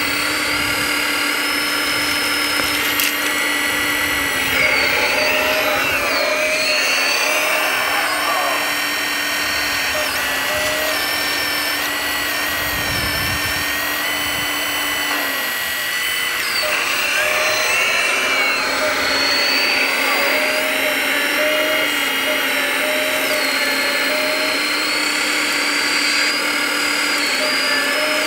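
Electric drive motors and gearboxes of radio-controlled scale construction models whining steadily, several tones at once, their pitch dipping and rising a few times as the machines work.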